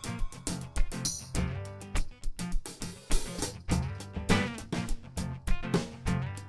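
Live instrumental music: a strummed guitar over hand percussion keeping a steady beat of about two hits a second, with no singing.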